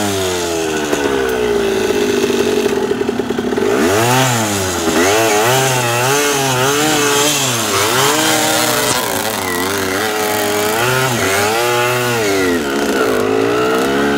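Dirt bike engine running under load, revving up and down over and over as the throttle is opened and closed. Its pitch sinks over the first few seconds, then swings up and down about once a second.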